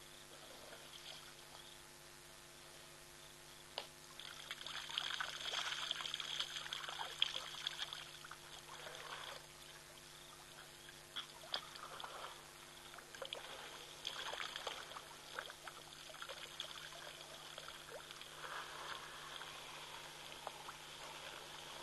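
An African elephant investigating the camera at close range: irregular rushing, trickling noise with scattered clicks and taps, loudest from about four to eight seconds in, then coming and going.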